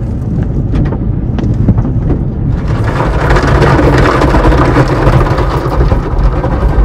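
Automatic car wash heard from inside the car: a steady low rumble, then about two and a half seconds in, water spray hits the roof and windows and the sound grows louder and hissier, like heavy rain on the car.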